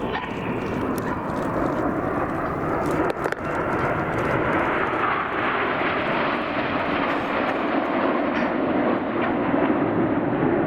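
Formation of BAE Hawk T1 jets, Rolls-Royce Turbomeca Adour turbofans, flying past as one steady rushing jet noise. About halfway through the sound turns duller as the high end fades with distance.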